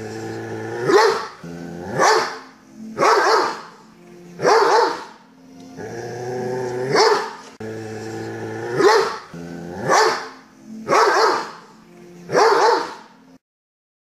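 A Doberman growls steadily and barks deeply, nine loud barks at uneven intervals of about one to two seconds, each rising out of the growl. The sound stops abruptly near the end.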